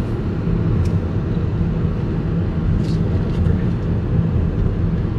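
A car driving along a road: a steady low rumble, with a couple of faint brief ticks.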